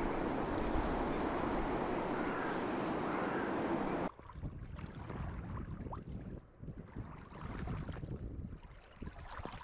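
A steady, even outdoor rushing noise that cuts off abruptly about four seconds in. After it, small waves lap and splash against shoreline boulders in an irregular run of little splashes.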